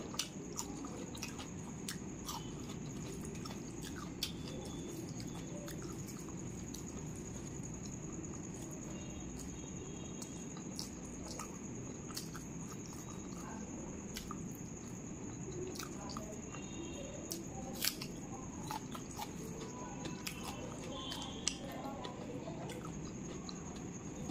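Close-miked chewing and mouth smacking of a person eating rice and chicken curry by hand, with many small wet clicks scattered through. Under it runs a steady low hum and a faint steady high whine.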